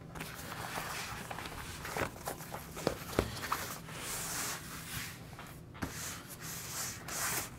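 Rustling and brushing of a soft fabric tool case being folded shut and handled on a desk, with a few light taps and knocks scattered through it.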